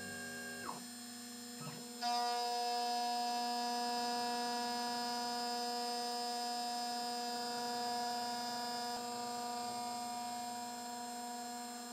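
CNC milling machine running while milling an aluminium part: a steady electric whine of several even tones. It dies away under a second in, starts again louder about two seconds in, and shifts slightly near nine seconds.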